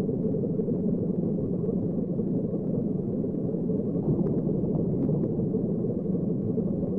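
A steady low rumble, an even noise without clear tones or beat, with a few faint ticks about four to five seconds in.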